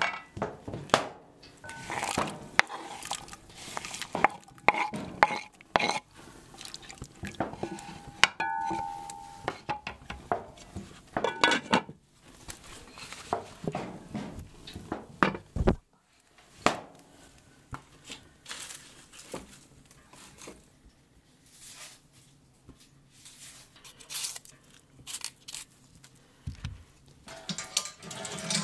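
Cast-iron cookware handled on the brick hearth of a wood-fired Russian stove: irregular knocks, scrapes and clinks of metal on brick and metal, with a few short metallic rings.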